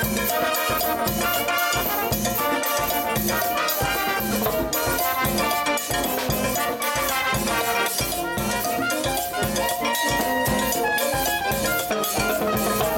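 Live brass band playing with percussion: drum kit, timbales and congas keep a steady beat under tubas, euphoniums, saxophones and trumpets carrying the tune.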